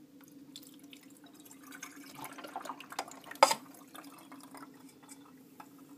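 Water poured from a cup into a Keurig coffee brewer's reservoir, a trickling splash that builds about two seconds in, with handling clicks and one sharp click about three and a half seconds in. A steady low hum runs underneath.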